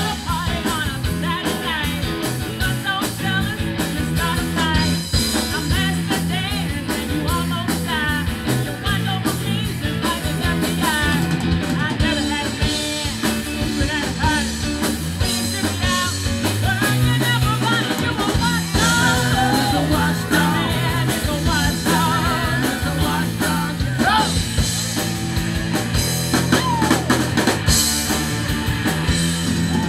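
Live rhythm-and-blues band playing: a woman singing over two electric guitars, electric bass and a drum kit keeping a steady beat.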